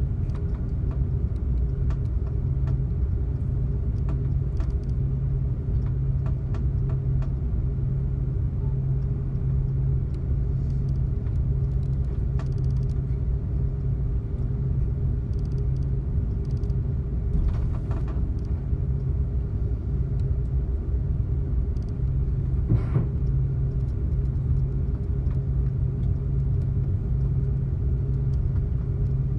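Steady low cabin rumble inside an Airbus A330-200 taxiing with its engines at idle, with a few faint clicks and one short sharper click about three-quarters of the way through.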